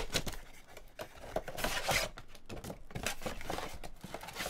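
Cardboard trading-card box being handled and opened, its inner cardboard tray of packs sliding out: a run of short, irregular scrapes, rustles and taps, opening with a sharp click.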